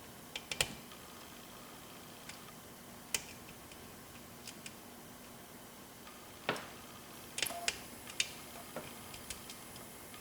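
Irregular sharp metallic clicks and ticks from a pick and tension wrench working the pins inside a 7-pin Corbin Russwin mortise lock cylinder. The clicks come in a quick cluster near the start, once about three seconds in, and as a group of several about two-thirds of the way through.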